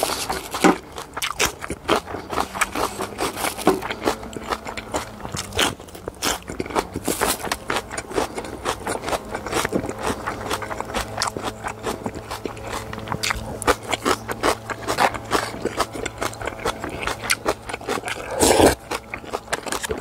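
A person eating close to the microphone: biting and chewing with many small crunches and clicks, and scraping against a food container. One louder, longer noise comes near the end.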